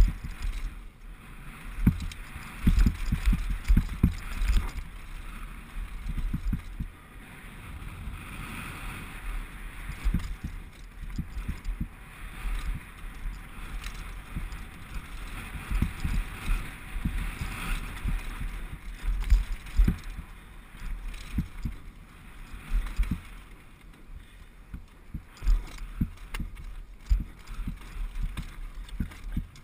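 A 2011 Specialized Big Hit downhill mountain bike running fast over a rocky gravel track, heard from a helmet-mounted camera: a steady rush of wind and tyre noise broken by frequent low thumps and rattles as the wheels hit rocks.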